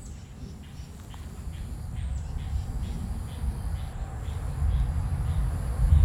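A low rumble that grows louder and peaks near the end, under a steady series of insect chirps, about two or three a second.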